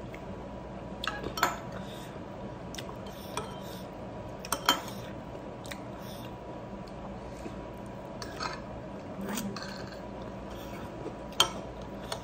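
Metal spoon clinking and scraping against a ceramic plate while rice is scooped up, a handful of short sharp clinks with the loudest near the end, over a steady background hum.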